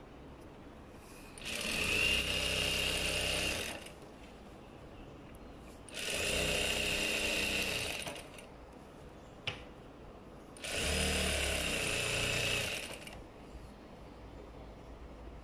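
Electric sewing machine stitching a folded hem in three runs of about two seconds each, stopping between runs as the cloth is guided. A single sharp click comes in the second gap.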